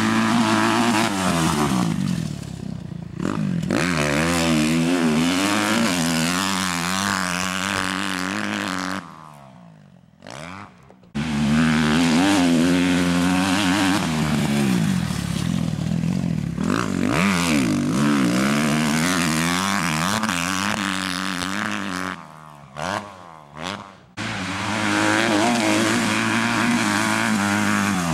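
Kawasaki KX250F single-cylinder four-stroke motocross bike revving up and down as it is ridden through corners, its pitch rising and falling with the throttle. The engine sound drops away twice, about nine and twenty-two seconds in, then comes back suddenly.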